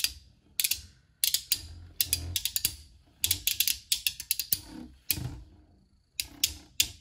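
Two Beyblade metal spinning tops, Fang Leone 130W2D and Proto Nemesis, clashing as they spin in a plastic stadium: sharp clicks and clacks in irregular clusters, with short quiet gaps between.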